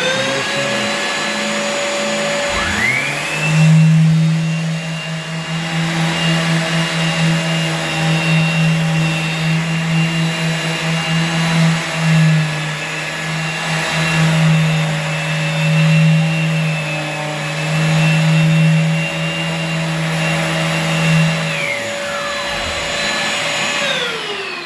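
A DeWalt palm sander with 80-grit paper, hooked up to a shop vac, sanding heavy varnish off an old door. The motors spin up one after another in the first few seconds and run steadily, with a low hum that wavers under the load of sanding. They wind down one after the other near the end.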